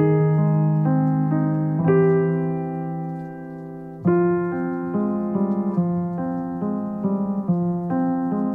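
Piano music: held chords, with a new chord struck about two seconds in and a louder one about four seconds in, after which the notes move more quickly.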